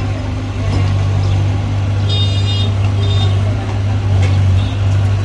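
Excavator's diesel engine running with a steady low drone. A high-pitched tone toots twice, about two and three seconds in.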